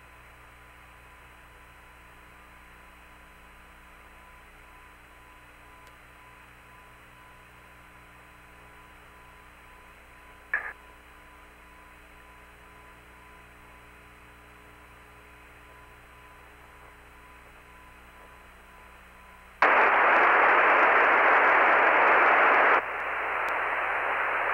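Hiss on the Apollo 16 lunar-surface radio link, with a thin steady tone under it and one short click about ten seconds in. Near the end loud static cuts in suddenly and, about three seconds later, drops back to a lower hiss.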